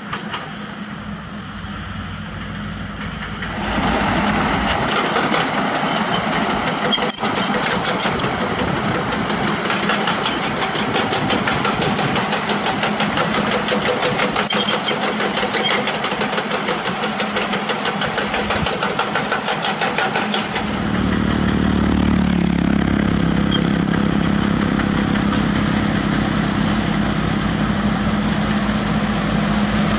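Komatsu D31P crawler bulldozer running and working as it pushes soil, a dense clattering machine sound that grows louder a few seconds in. About two-thirds of the way through it gives way to a Komatsu PC200 hydraulic excavator's diesel engine running with a steadier low hum.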